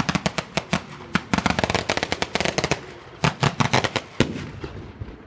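A string of firecrackers going off in rapid, irregular cracks, many a second. The cracks break off briefly about three seconds in, then a last dense run follows and dies away with a few scattered pops near the end.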